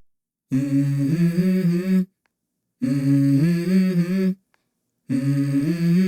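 Wordless hummed vocal melody in the music track: three phrases of about a second and a half each, stepping between a few notes, separated by short gaps of complete silence.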